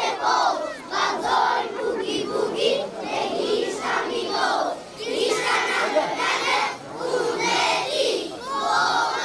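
A large group of young children shouting together in short phrases, with brief pauses between them.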